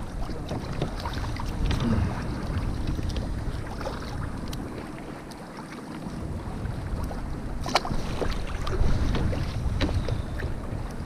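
Wind buffeting the microphone with a low rumble, mixed with small clicks and knocks from hands unhooking a small pollock from a lure; one sharper click stands out about two-thirds of the way through.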